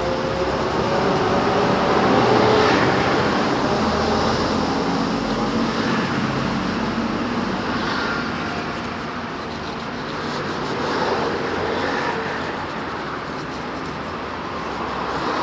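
Continuous motor-vehicle noise, engines passing and swelling louder a couple of seconds in and again near the end.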